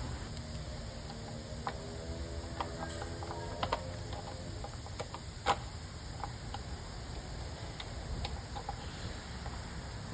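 Scattered light clicks and metallic taps of hand tools working on the engine's belt shield bolts, over a steady low hum. A sharper tap comes about halfway through, and a faint held tone sounds through the first few seconds.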